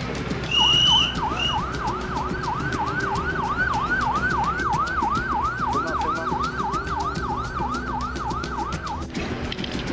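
Police siren in a fast yelp, about three sweeps a second, over the hum of traffic; it cuts off about a second before the end. About half a second in, a shrill whistle is blown, the loudest sound, followed by a second short blast.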